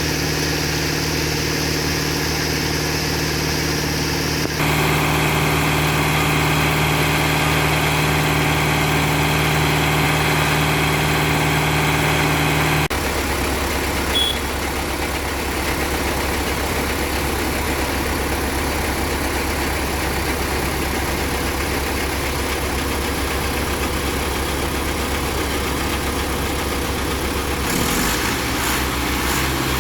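Concrete mixer truck's diesel engine running steadily, with its note changing a few times: a higher whine joins about four seconds in, and the note drops about halfway through.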